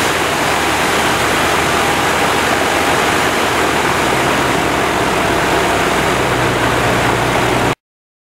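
Rotax 912 ULS engine of a Sting light-sport airplane running on the ground with its propeller turning, mixed with a heavy rush of propeller wind over the microphone. The sound is steady and cuts off suddenly near the end.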